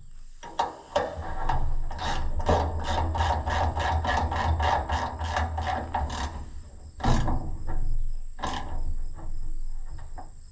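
Hand ratchet wrench clicking in a quick even run, about four clicks a second, as a bolt is turned, followed by two knocks of metal parts.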